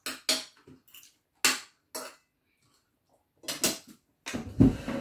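Metal fork and spoon clinking and scraping on a ceramic plate, a handful of sharp separate clicks. Near the end comes a louder, deeper, muffled sound.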